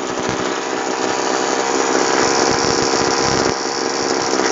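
Tasco TF-820 Pro backpack sprayer's small two-stroke engine running steadily at a fast, even idle, firing cleanly the way it should when it is running well.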